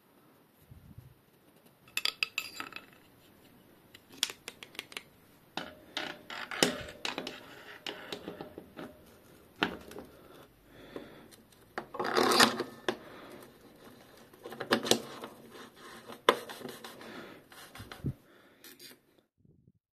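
Irregular metal clinks, taps and short scrapes as the parts of a bottom bracket facing tool (brass cutter, steel shaft, T-handle) are handled and fitted into a bicycle frame's bottom bracket shell. The loudest is one short scrape past the middle.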